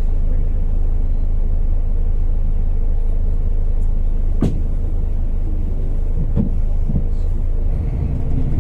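Bus engine idling, heard from inside the passenger cabin as a steady low rumble, with a few short dull knocks in the middle. Near the end the engine sound rises and grows fuller.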